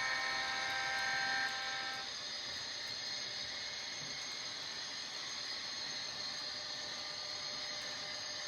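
Onboard sound decoder of an HO-scale Athearn Union Pacific SD40 model locomotive, through its small speaker: a multi-tone diesel horn chord held for about the first second and a half, then cutting off, leaving a steady hiss with a faint low rumble.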